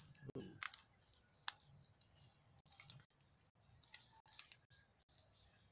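Near silence, broken by a few faint, scattered clicks and ticks.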